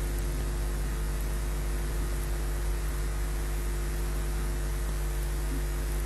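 Steady electrical hum and hiss from a nest camera's audio feed, with no calls or other events standing out.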